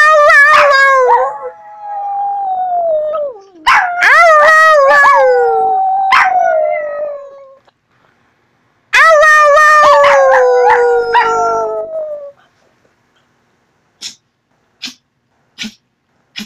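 Pet dog howling: three long howls, each sliding down in pitch, with short breaks between them, followed by four short, faint sounds near the end.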